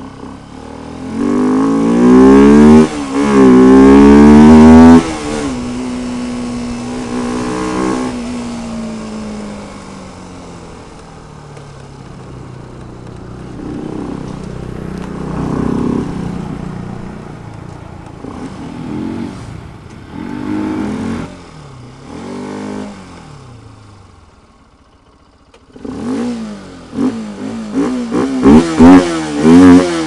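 Bajaj Pulsar 200 RS single-cylinder engine breathing through a K&N conical air filter, accelerating hard with an upshift about three seconds in, then easing off with the revs falling away. Several shorter throttle surges follow, then the engine drops almost to quiet before a few sharp throttle blips near the end.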